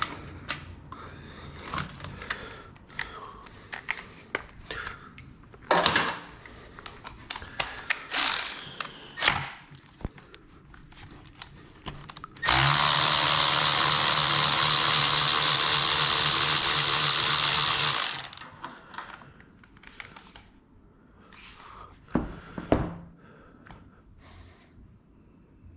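Tools clicking and clattering while being handled, then about halfway a loud, steady whirring hiss from a power tool running for about five seconds before it cuts off.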